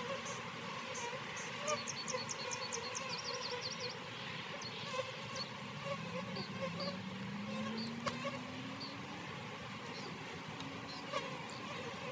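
Honey bees buzzing around an open hive, a steady hum with one bee's drone slowly rising in pitch. A bird sings a quick run of high chirps about two seconds in, with a few sharp clicks later.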